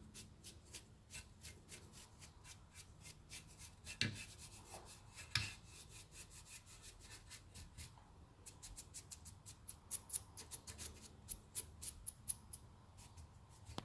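A brush being swept over a dusty old speaker in quick, short strokes, a few a second, with a brief pause about eight seconds in: the dust and gunk being brushed off.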